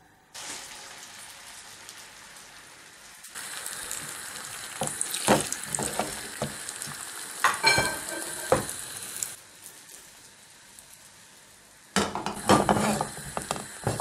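Beaten egg ladled into a hot non-stick frying pan starts sizzling, the hiss growing louder as more goes in. A utensil clicks and scrapes against the pan while the eggs are stirred, the clatter getting busier near the end.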